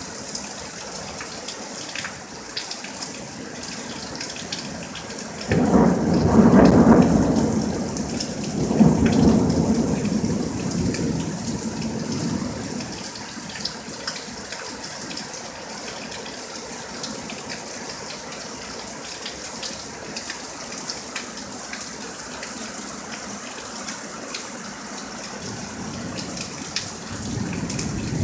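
Steady rain falling, with a thunderclap that breaks suddenly about five seconds in and rolls in two swells for several seconds before fading. Another rumble of thunder starts near the end.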